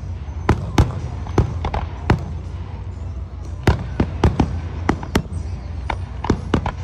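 Aerial fireworks shells bursting in a display: a quick, irregular run of about fifteen sharp bangs and cracks, some close together, over a steady low rumble.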